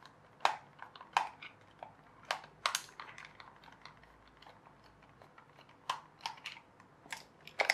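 Irregular light clicks and taps of small plastic toy-aeroplane parts being handled and worked on, spaced unevenly, with a few coming close together near the end.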